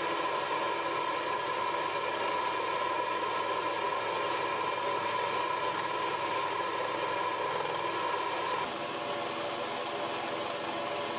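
Scroll saw running, its reciprocating blade cutting a small piece of wood along a glued-on paper pattern: a steady machine hum with a high tone. About two-thirds of the way through the sound changes abruptly, the high tone dropping out and the level falling a little.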